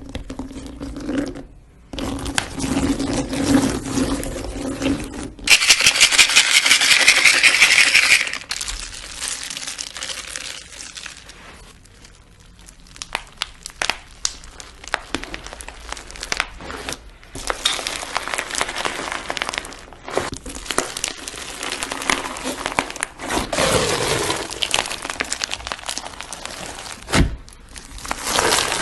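Slime being worked by hand: a run of crackling, popping clicks and sticky squelches, in several short takes. The loudest, densest crackling comes a few seconds in.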